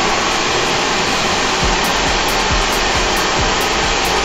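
Steady rush of compressed air from a bead-seating air tank blown into a quad bike tyre on a tyre changer, to seat the tyre's bead. Background music with a steady beat comes in under it about one and a half seconds in.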